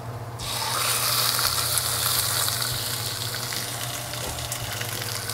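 Whole branzino laid into hot canola oil in a nonstick pan, setting off a sudden sizzle of frying that slowly eases over the next few seconds.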